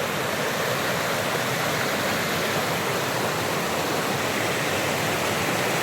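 Wagner Falls' water rushing steadily over the rocks, as an even hiss and roar.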